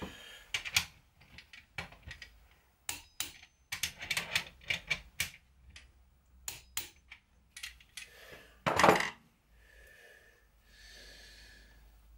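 Socket wrench clicking with metal-on-metal clicks and clanks as the main bearing cap nuts on a Mini engine block are tightened down over the crankshaft, with one louder clank about nine seconds in.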